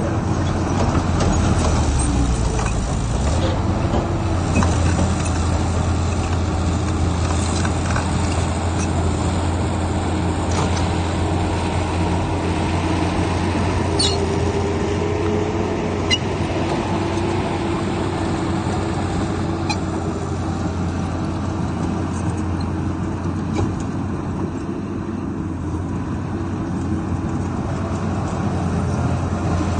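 Heavy diesel earthmoving machinery running steadily under load, with a deep engine drone and a few short sharp clanks about halfway through.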